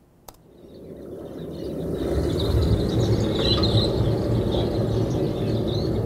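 A click, then a field recording of a large flock of migrating shorebirds on a mudflat fades in: many birds chirping at once over a steady low rushing noise.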